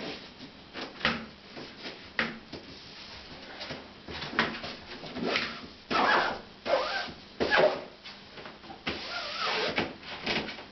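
Roller blind fabric rustling and crinkling while a thin bottom weight bar is slid and tapped into the hem pocket along its lower edge. There are a couple of sharp clicks at first, then longer rustling bursts.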